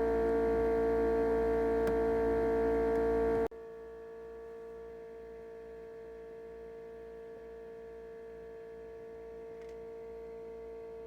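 Steady electrical hum with a strong single pitch and many overtones, dropping abruptly to a much fainter level about three and a half seconds in.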